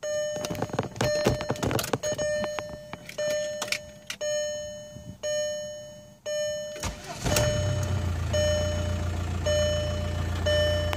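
Car dashboard warning chime repeating about once a second, then about seven seconds in the VW Passat's 2.0 TDI Pumpe-Düse four-cylinder diesel cranks and starts from cold, settling into a steady idle while the chime keeps sounding.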